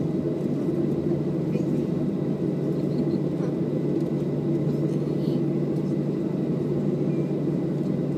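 Steady cabin noise inside a Boeing 737-700 on the ground: the engines at idle and the cabin air give an even low rumble with a faint, steady high whine.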